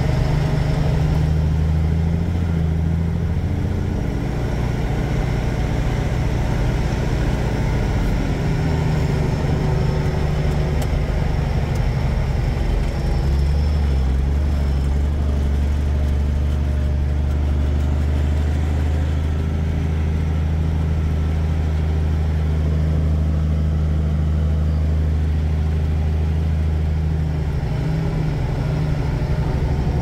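Heavy truck engine running steadily, heard inside the cab while driving. The low note shifts about 13 seconds in and again near the end.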